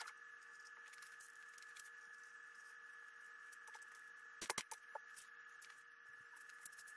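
Near silence: faint room tone with a steady thin high whine and a few light clicks, the loudest a quick cluster of clicks about four and a half seconds in.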